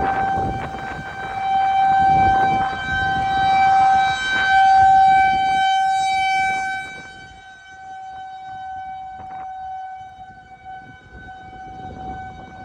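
Outdoor tornado warning siren sounding one steady tone that swells louder and softer, then drops away after about seven seconds and carries on faintly. Low wind noise rumbles on the microphone near the start.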